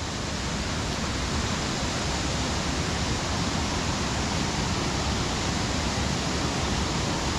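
Waterfall water rushing, a steady, even hiss that doesn't change.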